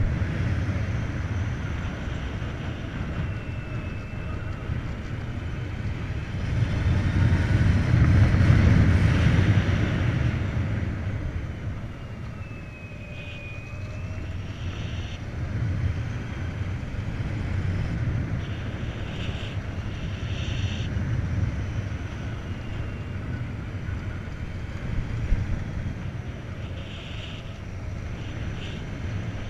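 Wind rush and tyre-on-road noise from a moving Volta BCN Sport electric motorcycle, swelling loudest several seconds in, with a faint high whine that dips and rises in pitch a few times.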